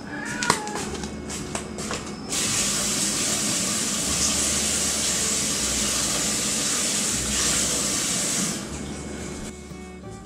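A tabby cat gives a short meow at the start, with a sharp knock. Then a loud, steady, water-like hiss comes in suddenly about two seconds in and cuts off sharply some six seconds later.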